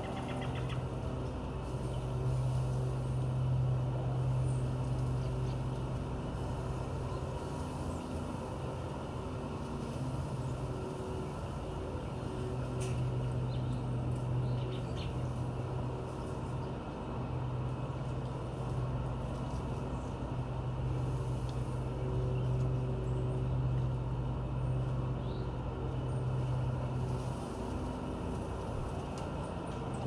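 Steady low machine hum with a drone that swells and fades every few seconds, over a constant background rumble. A few faint bird chirps come through now and then.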